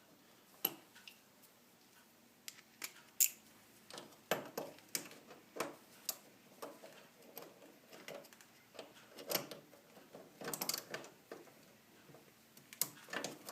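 Scattered light metallic clicks and clinks, irregular and spread out, as a nut is fitted onto a snowblower's drive-axle shear pin and worked on with tools.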